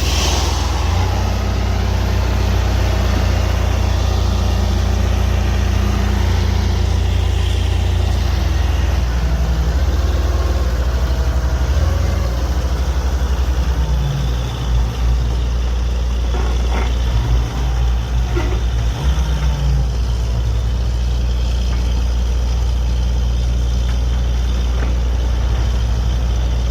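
Borewell drilling rig's engine and compressor running steadily with a low drone, wavering and dipping briefly a few times past the middle.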